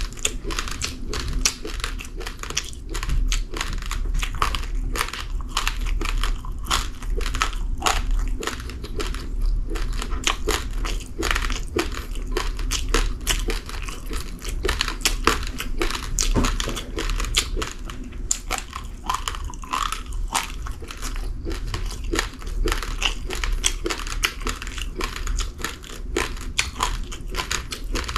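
Uncooked rice grains being chewed, a dense run of sharp crunches close to the microphone with no pause.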